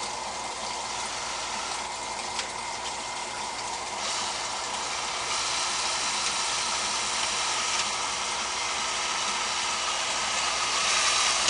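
Water running and splashing steadily as it flows through and overflows an aquaponics pH-probe housing, a little louder from about four seconds in.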